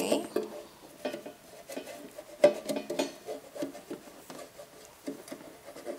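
Silicone pastry brush knocking and scraping against the inside of a corrugated metal loaf pan as nonstick coating is brushed into the sides and corners, giving irregular light clicks and knocks, some ringing briefly.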